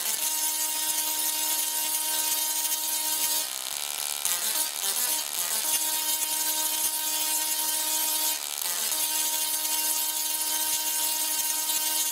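OneTesla singing Tesla coil playing music through its sparks: long held, buzzing notes, broken twice by short gaps.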